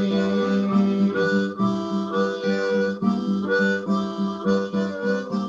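Harmonica playing a melody, its notes changing every fraction of a second, over a strummed acoustic guitar.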